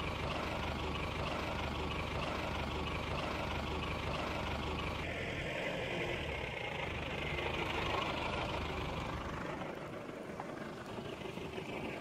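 A motor vehicle's engine running steadily, a low hum under road noise. The hum fades out about three quarters of the way through.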